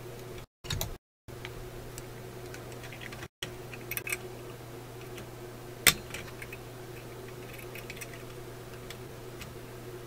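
Small clicks and taps of a soldering tool and capacitor leads against a metal terminal strip under a radio chassis, with the sharpest just before six seconds in. A steady electrical hum runs beneath. The sound cuts out briefly a few times in the first few seconds.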